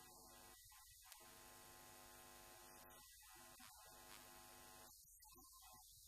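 Near silence: a faint, steady electrical mains hum under low hiss.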